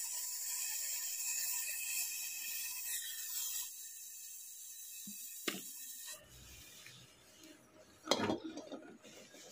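Brazing torch flame hissing steadily as a copper pipe is brazed onto a refrigerator compressor's stub; the hiss drops a little under four seconds in and stops after about six seconds, with a couple of light clicks. A short clatter near the end.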